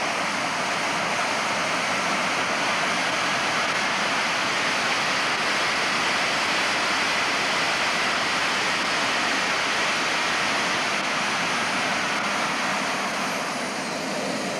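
Simjet 1200 model jet turbine running steadily: a continuous rush of exhaust with a faint high whine, easing slightly near the end.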